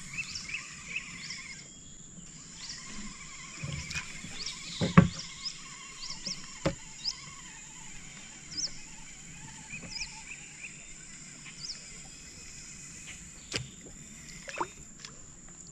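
Riverside ambience: a steady high insect drone with a bird chirping again and again, and a few sharp knocks, the loudest about five seconds in.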